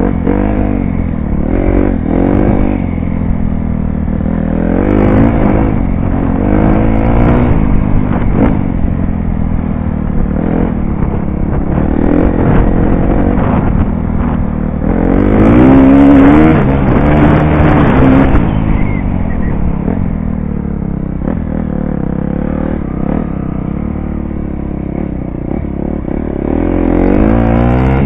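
KTM dirt bike engine revving up and falling off again and again as it is ridden along a trail. The pitch rises and falls with each shift and throttle change, and it is loudest about halfway through.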